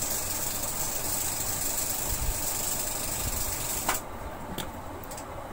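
A steady mechanical hum with a high hiss, which cuts off suddenly with a click about four seconds in, leaving a few faint ticks.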